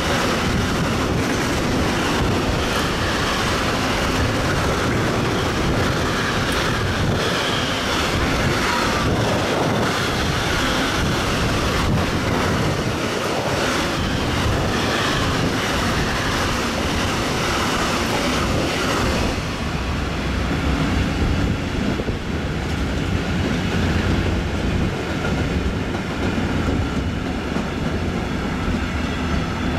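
Freight train of pocket wagons loaded with semitrailers passing close at speed: a steady rush of wheels and air with the clickety-clack of wheels over rail joints. About two-thirds of the way through, the high hiss drops away and a lower rumble continues.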